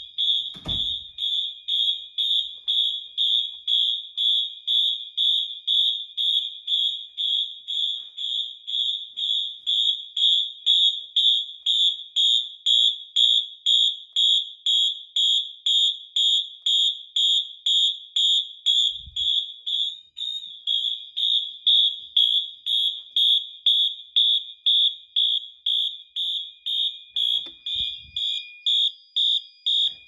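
Honeywell-branded Wheelock MT multi-tone horn strobes sounding a high-pitched horn tone in March time, about two even pulses a second, the fire alarm system in alarm from a pulled manual station. A few low thumps come through as well.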